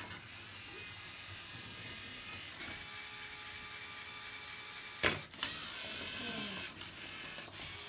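Small electric motors of a LEGO robot whining steadily as it drives across the table, starting a little over two seconds in. About halfway through there is one sharp knock, the loudest sound, as the robot hits something.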